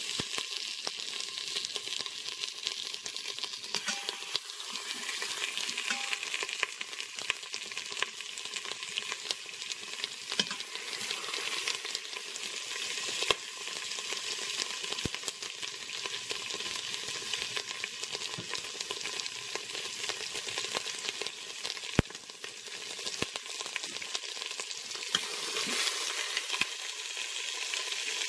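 Chicken thighs sizzling in hot oil in an Instant Pot's stainless steel inner pot as they brown, a steady crackling hiss broken by a few sharp clicks.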